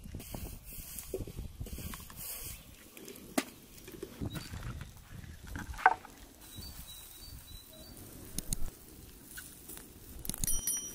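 Scattered light knocks and clicks of outdoor handling, the sharpest a little before the middle, with faint high bird chirps in the second half.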